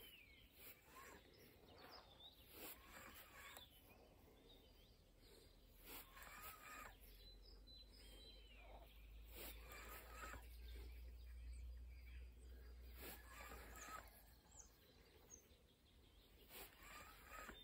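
Near silence, with faint, scattered bird chirps and a faint low rumble through the middle.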